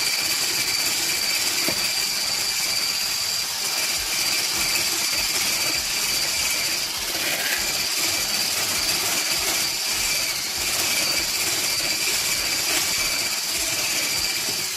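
Braun hand blender with a whisk attachment running at a steady speed, whipping cream cheese into a whipped-topping mix in a plastic bowl: a constant motor whine with two high steady tones.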